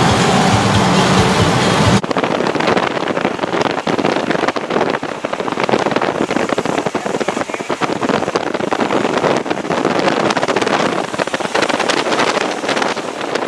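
Rushing noise from a moving car with the window open, with wind buffeting the microphone in crackling gusts. About two seconds in, a heavier low rumble drops away abruptly.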